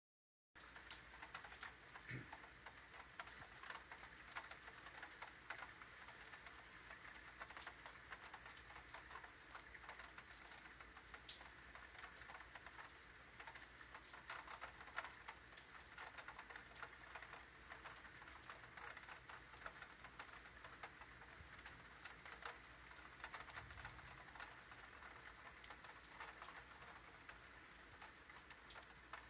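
Faint rain patter: many light, irregular ticks of drops over a soft hiss.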